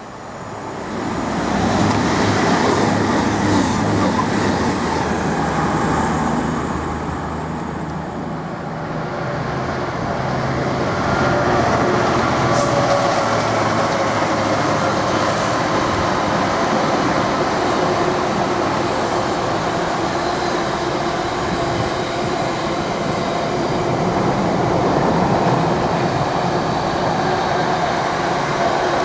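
Freight train passing at speed close by, loud from about a second in. It is a continuous rumble of locomotive and wagons running over the rails.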